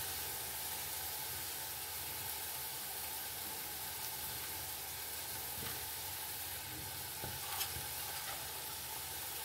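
Vegetable and spice paste frying in hot oil in a wok: a steady sizzle, with a faint tap about three-quarters of the way through.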